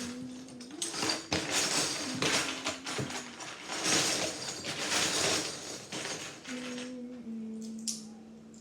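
Loose plastic Lego bricks clattering and rattling as hands rummage through a pile of them, loudest through the middle and tailing off into a few separate clicks near the end. A low humming tone holds underneath, stepping between a few pitches.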